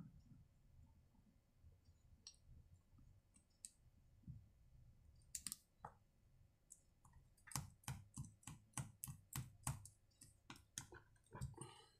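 Faint clicks and taps of a screwdriver on a small chainsaw carburetor as the cover screws are driven in after the membrane is fitted. A quick run of sharp clicks, about three a second, comes in the second half.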